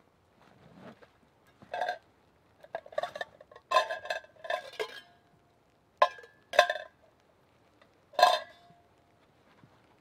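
Stainless steel containers and a tin can clinking and knocking together as they are handled. The clinks come in an irregular series, several with a short metallic ring, and the loudest are near the end.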